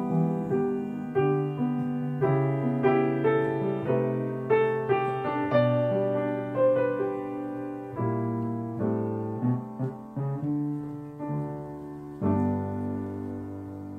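Solo piano playing a slow instrumental passage of chords and melody notes that gradually grows softer, with a final chord struck near the end and left ringing.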